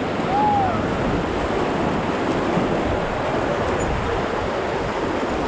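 River rapids: fast water rushing steadily around a raft, with wind buffeting the microphone.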